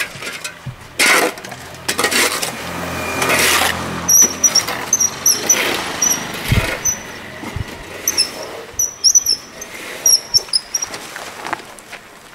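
A loaded metal wheelbarrow being pushed, its wheel squeaking in short high chirps about two to three times a second. A few scraping knocks come first, in the opening two seconds.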